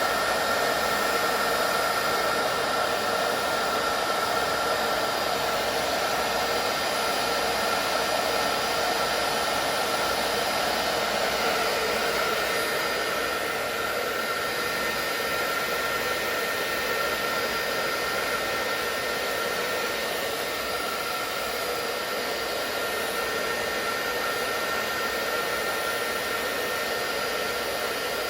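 Hair dryer running steadily, a rushing blow with a steady whine in it, aimed at a Nike Air sole's fogged air bubble to clear the fog. It eases slightly about halfway through.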